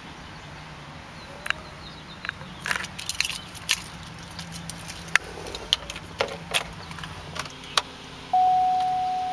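Car keys jangling and clicking at the ignition of a 2009 Hummer H2. About eight seconds in, the dashboard warning chime starts: a steady single tone that fades and then sounds again.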